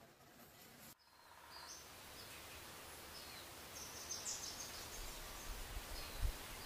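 Steady background hiss with faint, short, high chirps scattered over it, and a brief low thump near the end.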